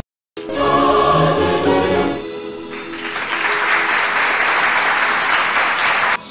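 A choir sings a short chord for about two seconds, then applause follows for about three seconds and cuts off abruptly near the end.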